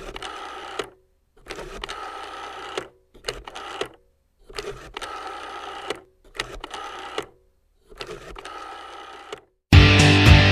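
Six separate bursts of a steady intro sound effect, each a second or so long with silence between. Loud rock music with electric guitar starts near the end.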